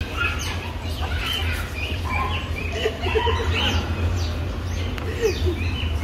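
Many small caged birds chirping at once: a dense chatter of short, overlapping, mostly falling chirps, with a steady low hum underneath.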